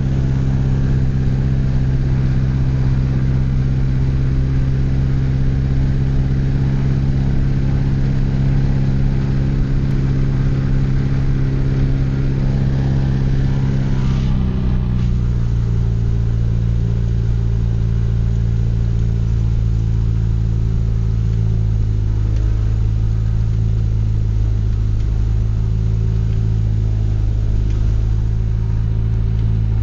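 Mooney light aircraft's piston engine running steadily on a ground test run after months of standing unused. About halfway through it is throttled back and settles at a lower, steady speed.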